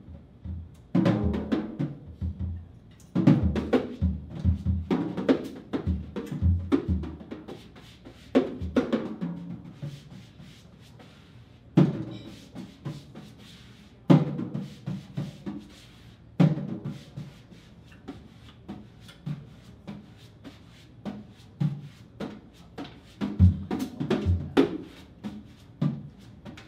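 Jazz drum solo on a small drum kit played with bare hands instead of sticks: bursts of snare, tom and bass drum hits broken by short pauses, with a few hard single accents in the middle.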